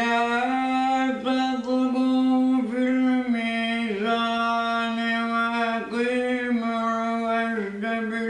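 A man's unaccompanied voice reciting the Quran in the melodic tajwid style. He holds long notes on a nearly steady pitch, with short ornamented dips and turns between phrases.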